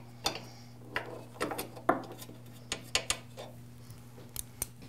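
Metal wrenches clinking and tapping against the lock nuts on a thickness planer's table adjustment screws as the nuts are loosened: a string of irregular sharp clicks, some ringing briefly.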